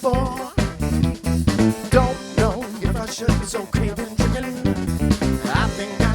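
Band playing an instrumental passage: drum kit keeping a steady beat, with bass and guitar.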